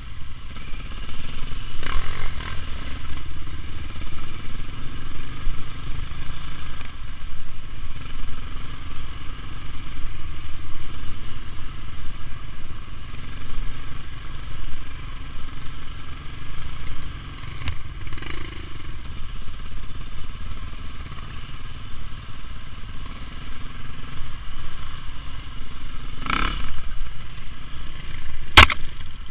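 KTM enduro motorcycle engine running as the bike is ridden along a rough trail, with a steady low rumble and a few sharp knocks and clatter from the bike going over the ground; the loudest knock comes near the end.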